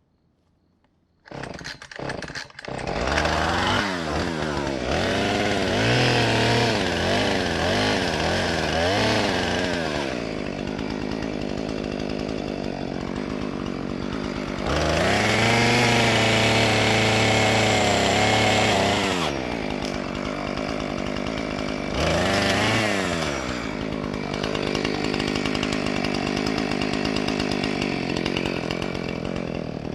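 Chainsaw starting up about a second in, then revved up and down several times. Midway it runs at full throttle for about four seconds, gets one shorter burst of throttle later, and settles back toward idle near the end.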